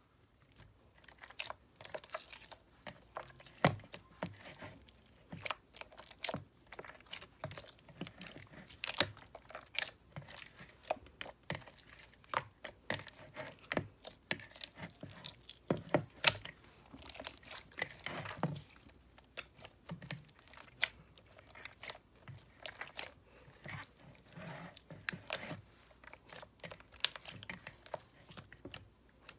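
Slime being squished and poked by hand, giving a dense, irregular run of sticky clicks, pops and crunches, a few of them louder.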